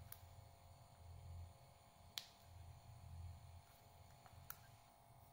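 Near silence: a low room hum, with one small sharp click about two seconds in from handling the plastic ear-hook adapter and its cable.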